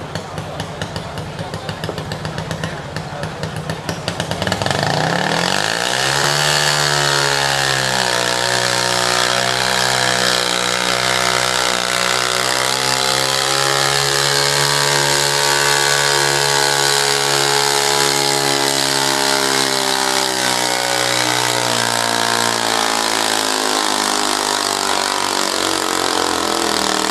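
Engine of a modified pulling garden tractor: a rough, uneven idle, then about four to five seconds in the throttle opens and it revs up fast and runs at high revs under load as it drags the weight sled. The revs sag slowly as the pull goes on.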